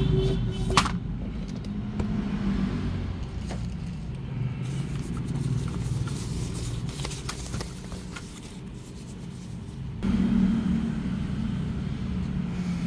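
Steady low rumble of engines, like road traffic, getting louder about ten seconds in, with scattered clicks and scrapes from a keyboard box and its parts being handled.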